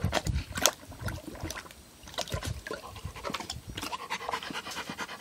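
Dog lapping water from a plastic bowl with quick, wet, splashy laps, then lifting its head and panting in a rapid, even rhythm near the end, winded after exertion.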